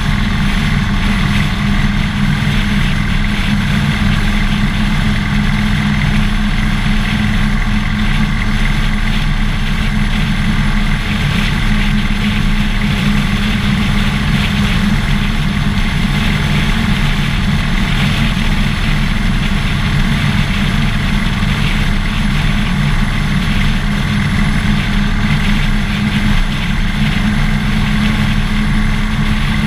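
Harley-Davidson Dyna Fat Bob's V-twin engine running steadily, heard through a camera mounted on the motorcycle, with no clear revving or gear changes.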